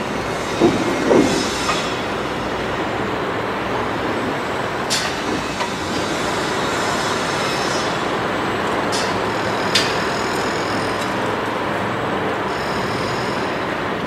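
Construction site din: a steady wash of heavy machinery engine noise, with a couple of louder thuds about a second in and a few sharp knocks scattered through it.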